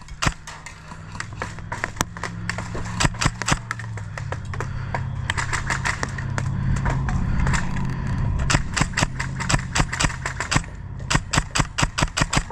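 Airsoft guns firing rapid strings of shots, sharp cracks several a second, in two spells: one at the start and one from about two-thirds of the way in. A low steady hum runs underneath, loudest in the middle.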